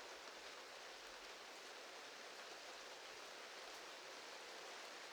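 Faint steady rain, an even hiss with no individual drops standing out.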